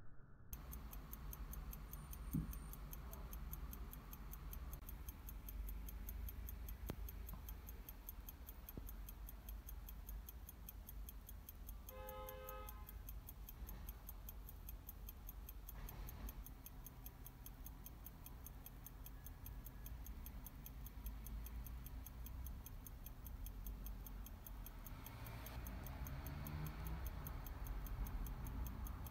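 Steady, rapid ticking of a Tissot Savonette pocket watch's hand-wound ETA 6497 skeleton movement, faint over a low hum. A short pitched tone sounds briefly about twelve seconds in.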